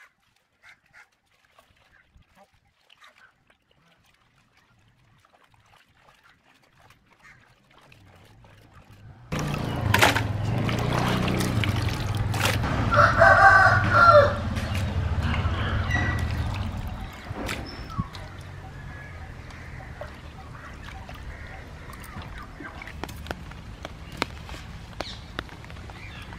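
Near silence for the first several seconds, then water sloshing as pieces of ray fish are washed by hand in a wide iron pan. A rooster crows once about halfway through, followed by quieter handling with scattered light clicks.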